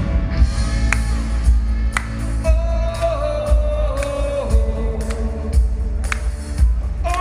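Live rock band playing: drums on a steady beat of about two hits a second over heavy bass, with a held melody line that sounds sung.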